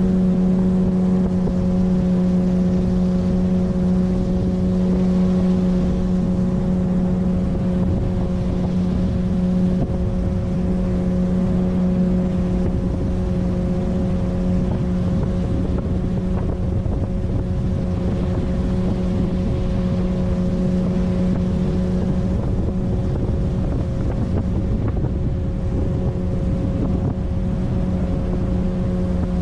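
9.8 hp outboard motor on a small inflatable PVC boat running steadily at cruising speed, its pitch holding constant, with wind rumbling on the microphone.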